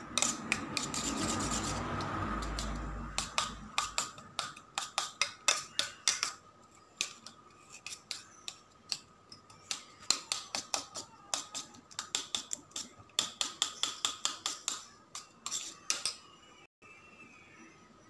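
Steel spoon beating raw eggs with chopped onion and green chilli in a stainless steel bowl. It goes as a quick run of clinks against the metal, several a second, after a louder, wetter swishing noise in the first few seconds. The beating stops near the end.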